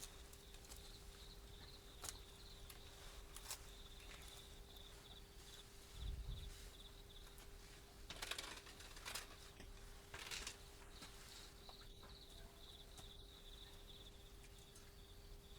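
Near silence: a faint steady hum and a faint high pulsing chirp, with a few soft clicks and one low thump about six seconds in.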